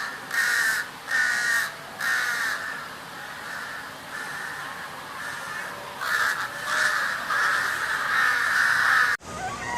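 Crow cawing repeatedly, harsh calls about half a second each, coming faster and more continuously in the second half, then breaking off abruptly near the end.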